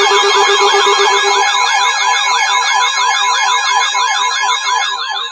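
Loud electronic siren tones sweeping rapidly up and down in a yelp, several overlapping, over a steady alert tone. The alarm comes just before a tornado warning is read out.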